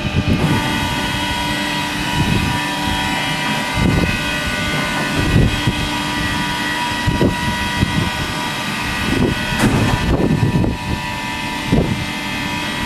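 Waste-steriliser plant machinery running with a steady hum of several held tones, with irregular metal clanks and knocks, about eight of them.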